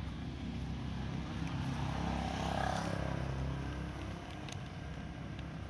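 Street traffic: a motor vehicle running by, swelling to its loudest about halfway through and fading, over a steady low rumble. A few short crinkles and clicks from a plastic shopping bag being rummaged, about four and a half seconds in.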